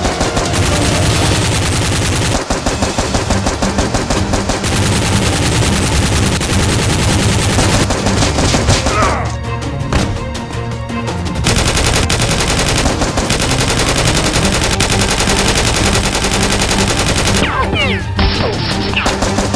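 Rapid automatic gunfire, long bursts of machine-gun fire, with a brief lull about ten seconds in.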